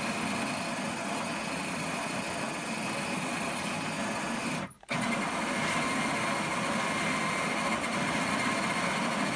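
Dome drive motor of a 3D-printed R2-D2 running, its small pinion turning the printed plastic ring gear to rotate the dome: a steady gear-driven whirr with a faint high whine. It cuts out for a split second about halfway through, then runs on.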